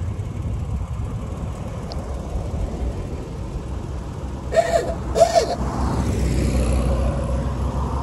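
Steady low rumble of a line of cars and pickup trucks driving past, with two short horn honks about halfway through, under a second apart.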